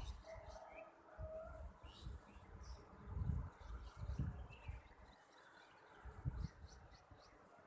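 Small birds chirping faintly in short rising notes, over irregular low rumbles.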